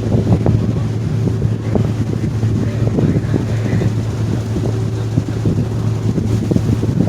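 Steady low drone of the Staten Island Ferry's engines, with wind buffeting the microphone.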